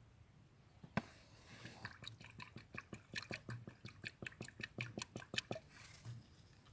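A single sharp click, then a quick, irregular run of small clicks and taps, several a second, that stops about a second before the end.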